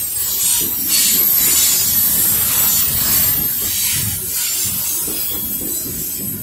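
Freight train of coal gondola cars rolling past close by: a steady rumble of wheels on rail under a continuous hiss.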